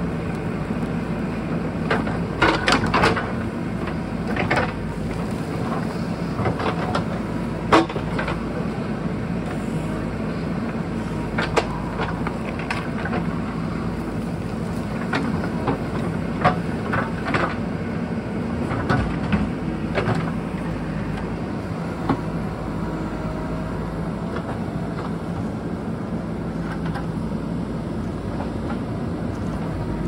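JCB backhoe loader's diesel engine running steadily at working speed, with scattered knocks and clanks from digging among rocks. The sharpest knock comes about eight seconds in.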